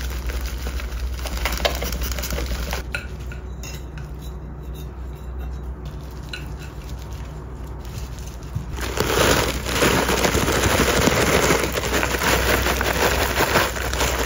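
Potting soil being poured and handled around a plant in a pot during repotting: faint scattered clicks and rustles at first, then a loud, dense crackling rustle of soil from about nine seconds in.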